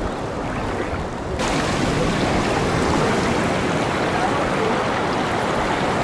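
Sea surf washing over the rocks: a steady rushing noise, with wind rumbling on the microphone in the first second or so before the sound turns suddenly brighter and fuller.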